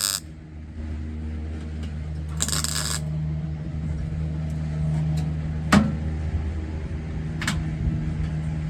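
MIG welder tacking a replacement roof-gutter panel on a VW bus: two short bursts of welding crackle, one right at the start and one about two and a half seconds in, over a steady low hum. A sharp knock comes near the six-second mark and a lighter one about a second and a half later.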